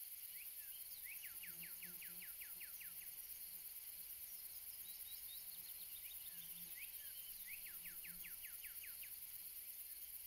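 Background nature sounds: a bird sings a quick run of about ten descending chirps twice, about a second in and again near the end, with scattered higher chirps in between, over a steady high hiss.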